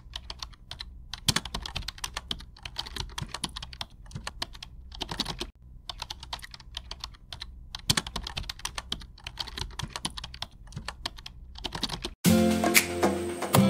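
Marker scratching across a board in short runs of quick strokes with brief pauses between them. About twelve seconds in, music comes in, louder.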